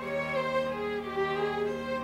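Chamber string orchestra playing live: a steady held low note under a slowly moving violin melody.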